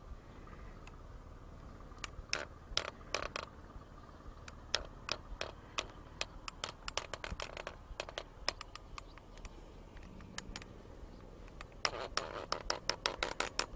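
A run of irregular, sharp clicks and taps, sparse at first and coming thick and fast near the end.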